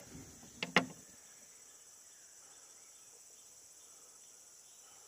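Steady high-pitched drone of insects from the surrounding forest. A brief sharp click or knock comes just under a second in.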